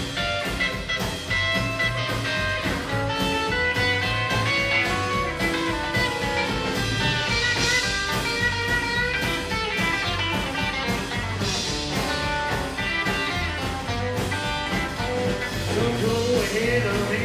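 Live rockabilly band playing an instrumental break between verses: quick guitar lead notes over strummed acoustic rhythm guitar, bass and drums, with the singer's voice coming back in near the end.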